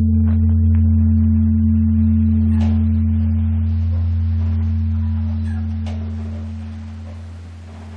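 Large bronze Korean Buddhist temple bell (beomjong) humming after a strike: a deep, steady hum that slowly fades away.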